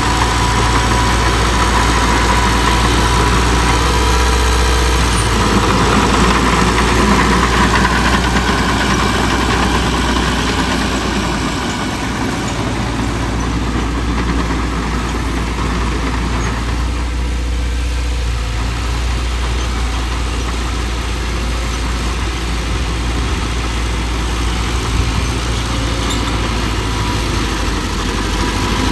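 Diesel engine of heavy earthmoving equipment (a bulldozer or dump truck) running steadily, a little louder for the first ten seconds or so.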